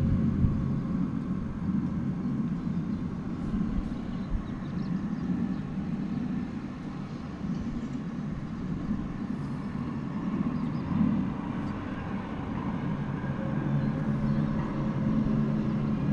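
A low, steady rumbling drone with a wavering hum heard from outside, an unexplained noise that the recorder says has been recurring every ten minutes to half an hour.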